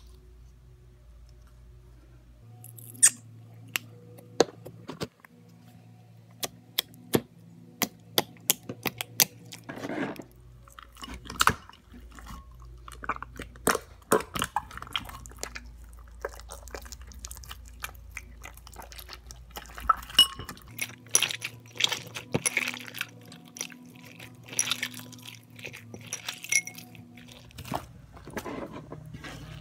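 Hands kneading and squeezing glue-and-borax slime, working silver acrylic paint into it: wet squishing with many sharp, sticky clicks and pops.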